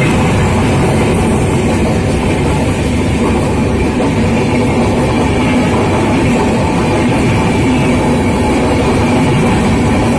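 Air-conditioned express passenger coaches passing close by at speed: a loud, steady rumble of steel wheels running on the rails.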